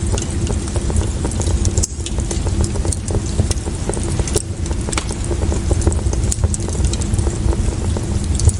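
Fire crackling, with many irregular sharp pops and snaps over a steady low rumble.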